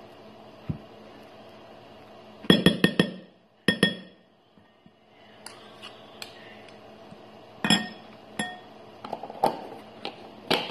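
Metal spoons clinking against a glass mixing bowl while scooping a thick white sauce from a jar and knocking it off into the bowl. There is a quick run of four clinks about two and a half seconds in, then single ringing clinks spread out after that.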